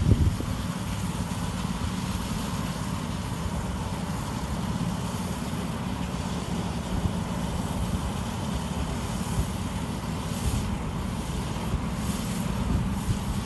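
7.25 inch gauge miniature train running past on its track, a steady low rumble throughout.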